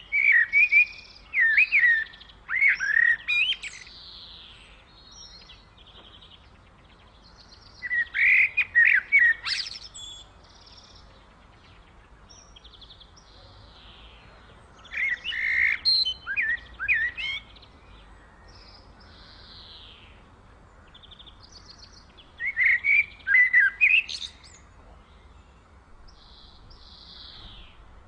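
A songbird singing loud phrases of quick, warbling notes, each lasting two or three seconds and repeated about every seven seconds, with fainter chirps of other birds in the pauses.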